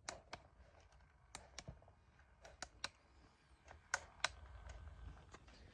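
Faint, scattered light clicks and taps of small plastic toy figures being handled and set down, about ten in all at irregular intervals.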